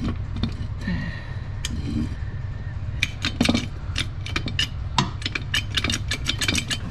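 Irregular metallic clicks and clinks of hand tools on the underside of a car, sparse at first and then coming quickly, several a second, through the second half, over a steady low hum.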